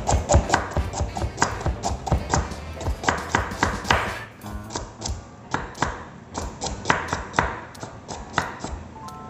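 Chef's knife slicing carrots on a plastic cutting board: quick runs of sharp knocks as the blade strikes the board, several a second.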